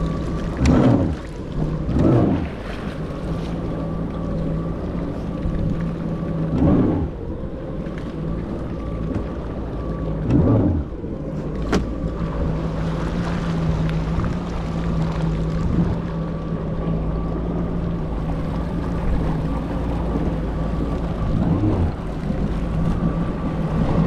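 Yamaha jet ski engine idling with a steady hum, blipped up in short bursts of throttle about five times.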